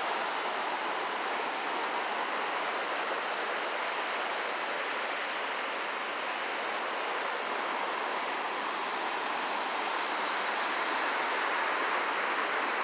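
Swollen creek running high and rough, close to flooding: fast white water rushing with a steady, even noise.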